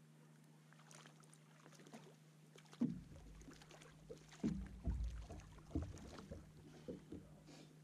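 A hooked channel catfish splashing and thrashing at the surface beside a small fishing boat as it is brought in by hand, with irregular splashes and thumps starting about three seconds in. Before that, only a faint steady hum.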